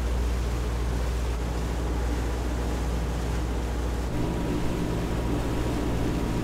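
Steady low drone of a Seawind 1170 sailing catamaran's diesel engine running while motoring, under an even hiss of water and air; the drone's tone changes about four seconds in.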